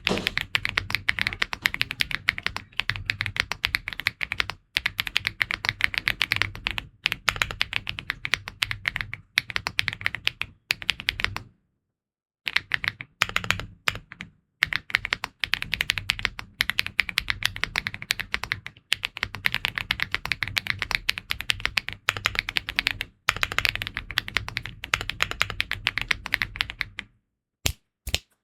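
Fast continuous typing on an aluminium 75% mechanical keyboard (Elecfox PMO Wave 75) with magnetic Snow Cyan switches and PBT Cherry-profile keycaps, giving a thocky, clacky sound. The typing stops briefly about twelve seconds in and again near the end.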